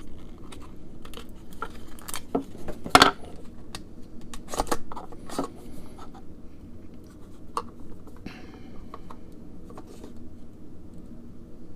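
Scattered small clicks and short scrapes of small objects being handled, with one sharp, louder click about three seconds in.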